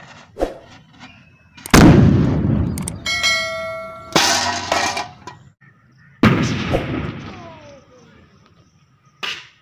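A sutli bomb firecracker going off with a loud bang under an upturned aluminium bucket, followed by the bucket's metallic ringing clang and further loud hits. A second bang comes about four and a half seconds after the first.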